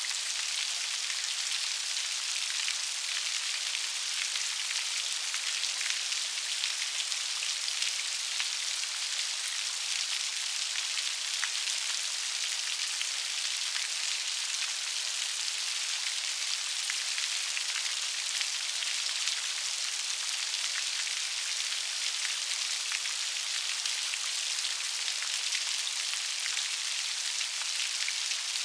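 Steady rain with many small drops pattering, a constant hiss with fine ticks of individual drops and no deep rumble.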